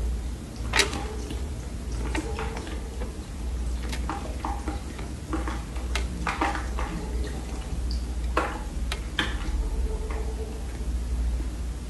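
Dry Chinese loess clay being bitten and chewed close to the microphone: irregular sharp crunches and crackles, a few louder than the rest, over a steady low hum.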